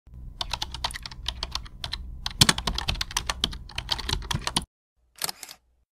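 Computer keyboard typing: quick, irregular keystrokes over a low hum. The typing stops about four and a half seconds in, then a brief flurry of a few more keystrokes follows.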